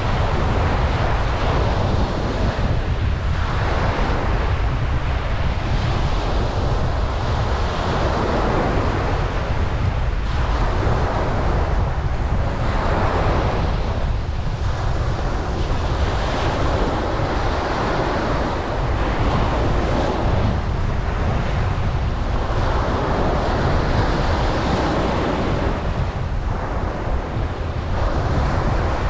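Ocean surf breaking on a beach, waves surging and washing in every few seconds, over a steady low rumble of wind on the microphone.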